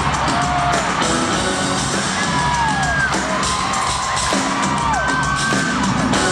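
Live drum kit solo played through an arena sound system, with the crowd whooping and whistling over it; several whistles slide down in pitch.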